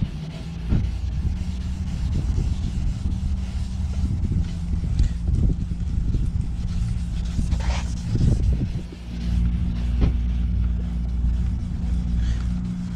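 A vehicle engine running steadily at idle, a low hum that gets heavier about two-thirds of the way in, with a few short low knocks.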